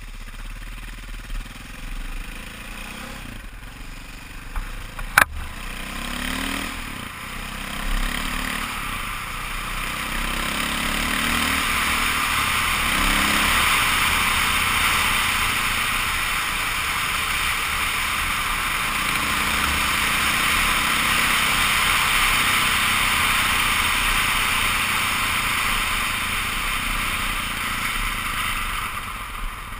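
KTM 530 EXC single-cylinder four-stroke dirt bike engine running on the move, its pitch rising and falling with the throttle. From about ten seconds in, rushing wind and gravel road noise grows louder as speed builds. A single sharp click sounds about five seconds in.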